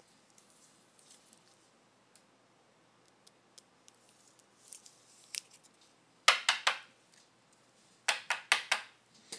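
Trading cards and plastic card stands being handled on a tabletop: faint ticks, then two quick runs of sharp clicks and snaps, one about six seconds in and one near the end.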